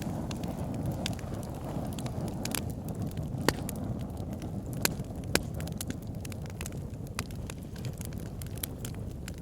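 Wood fire burning in a fireplace: a steady low rush of flame with logs crackling and popping at irregular intervals, a few pops sharper than the rest.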